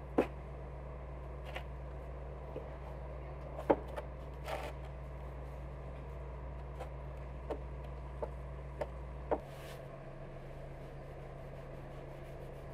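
Firebricks being set in place on an oven dome: scattered light knocks and clicks of brick on brick, about nine in all, with a short scrape about four and a half seconds in. A steady low hum runs underneath and drops in level about nine seconds in.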